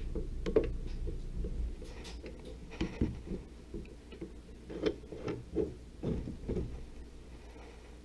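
Light irregular clicks and knocks as a wood blank in a mini lathe's 4-jaw chuck and the spindle handwheel are turned and handled by hand. A low hum fades out in the first second or two.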